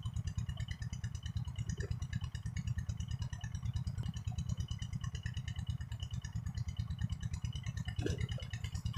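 A small engine running steadily with a low, even chugging. A brief splash of water comes near the end.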